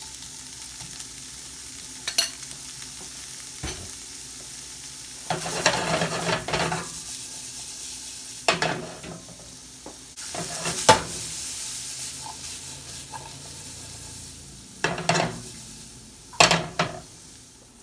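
Chickpeas in olive oil sizzling in a frying pan on medium-low heat, with several short bursts of scraping and rattling as they are stirred around the pan to drive off their moisture.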